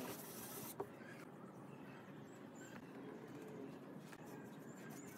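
A hand brushing over a pine board for about a second, with a small click, then a quiet workshop with a few faint, high bird chirps.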